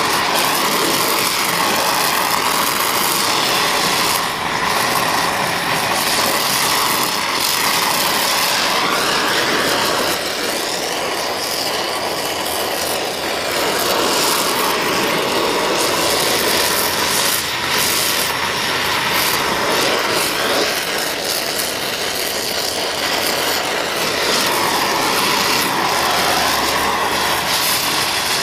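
Steady hiss of an oxy-fuel torch flame heating cast iron while bronze brazing rod is melted into the joint.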